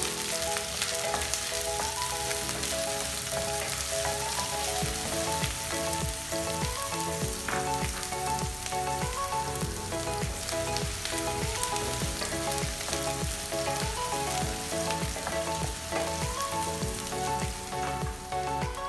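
Chopped white onions sizzling steadily in hot oil in a stainless steel frying pan, stirred with a wooden spoon. Background music plays along with it.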